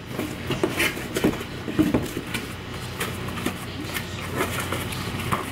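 Cardboard packaging rustling and tapping as small candle boxes are lifted out of a shipping box and handled, with scattered crinkles and knocks throughout, over a steady low hum.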